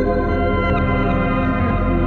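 Background music: slow ambient music of held notes that change about once a second.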